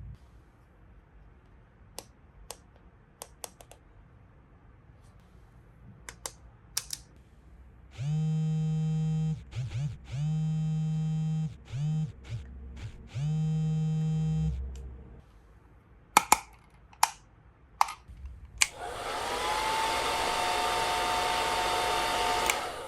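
Small plastic clicks and taps of toy pieces being handled, then a battery-operated toy's electronic buzz in four bursts, more clicks, and near the end a steady whirring hiss of about four seconds.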